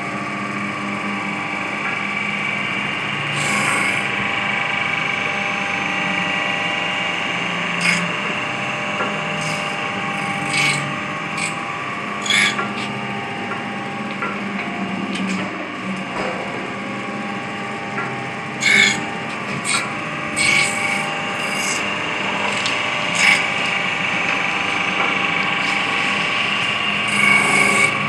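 Plywood knife grinder running: the grinding head's electric motor gives a steady hum with a whine of several held tones as it works along a long veneer peeling knife. Short, sharp scraping sounds come and go at irregular intervals.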